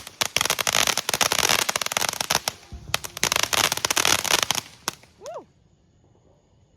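Consumer fireworks going off in a rapid, dense run of crackling pops that thins out and stops about five seconds in.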